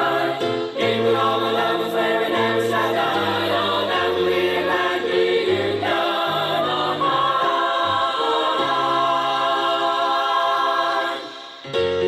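Gospel choir singing in harmony, with a brief break near the end before the music picks up again.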